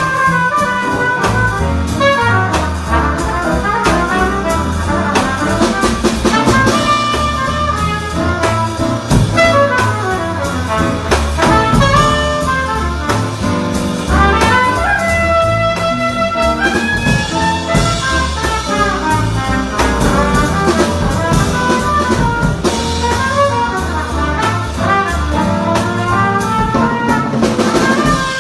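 Instrumental jazz passage, with horns carrying the melody over bass and drum kit.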